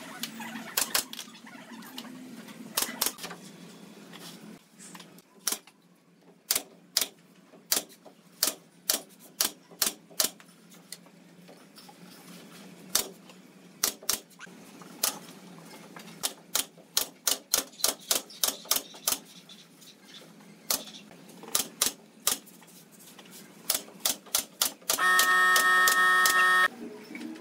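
Pneumatic nail gun firing nails into pallet wood: dozens of sharp shots, often two or three a second in quick runs. Near the end a loud held buzzing tone lasts just under two seconds.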